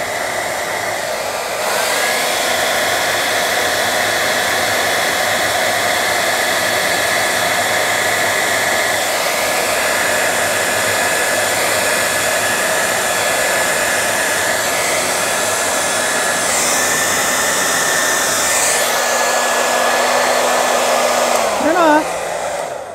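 Hand-held hair dryer blowing steadily, louder from about two seconds in, then switched off near the end.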